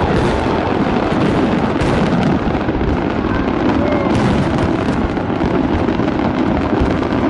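Fireworks display in a dense, continuous barrage: overlapping booms and crackling with no pause between shells.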